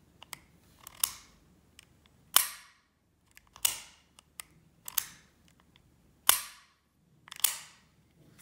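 Action of an H&K P7 M13 pistol being worked by hand, its squeeze-cocker and trigger clicking. Six sharp metallic snaps come about one every 1.3 seconds, each with a brief ring, and several are led by a faint click.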